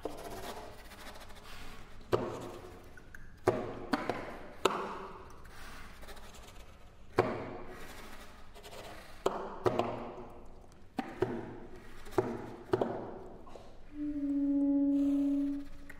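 Saxophone quartet playing sharp, irregularly spaced percussive attacks, about ten of them, each ringing briefly in a reverberant hall. Near the end a single held low saxophone note swells and fades.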